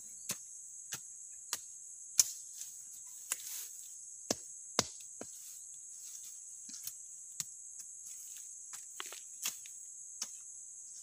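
A metal-bladed hand tool striking and digging into soil and cut grass, clearing weeds around a banana plant: about fifteen sharp strikes at irregular intervals. Insects, crickets by the sound, trill steadily and high-pitched throughout.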